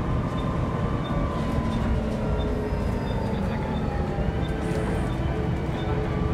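A bus in motion, heard from inside the passenger saloon: steady engine and road rumble with a drivetrain whine that slowly shifts in pitch as the speed changes. A faint regular tick repeats about every two-thirds of a second.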